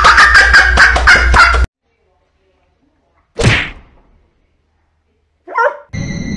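A hen calling loudly in a rapid run of squawks for under two seconds, as it snatches a praying mantis. After a pause there is a short sound falling in pitch and a brief call, and steady music starts near the end.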